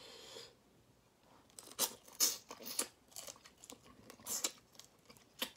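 Close-up eating sounds of spicy crayfish: shells crackling and tearing in the fingers, with wet sucking and chewing at the mouth, in irregular sharp crackles.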